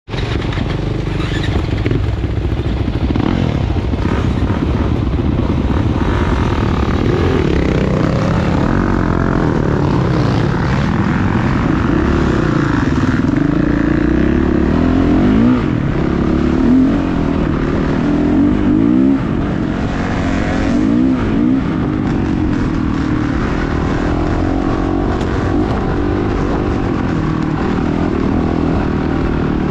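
Motocross dirt-bike engines revving, several at once. Their pitches rise and fall over and across one another as the riders open and close the throttle.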